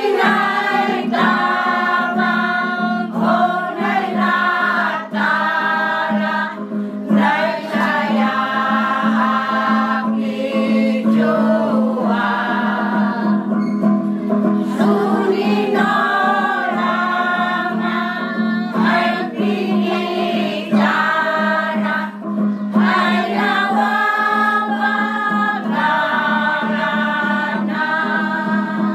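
Choir of elderly men and women singing a hymn in the Klamu language, many voices together over a steady low held note, with short breaths between phrases.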